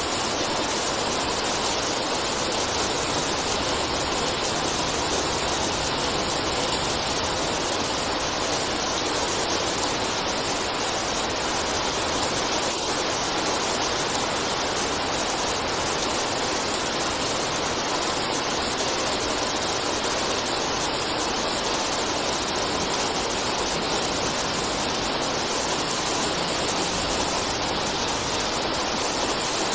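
Rain falling steadily, an even hiss of water that does not change.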